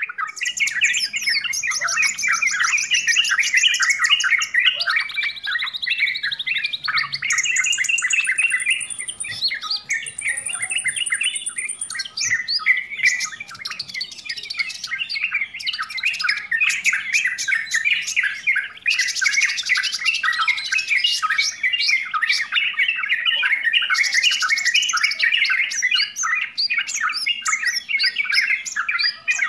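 Yellow-vented bulbuls chattering noisily without pause: dense, rapid chirps and chattering notes, with stretches of higher buzzy trilling and, about ten seconds in, two held high whistles.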